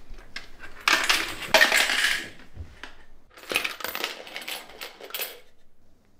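Coins rattling and clinking inside a plastic piggy bank as it is handled, in two spells of a second or two each.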